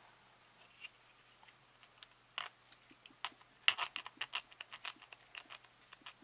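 X-Acto hobby knife cutting and scraping through warmed soft vinyl flash, with handling of the part: a few short clicks and scrapes at first, then a quick cluster of them about four seconds in.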